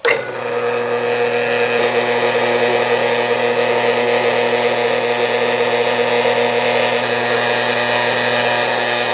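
Electric wet grinder's motor switched on, coming up to speed at once and running with a steady hum as its grinding wheel spins, loud and noisy.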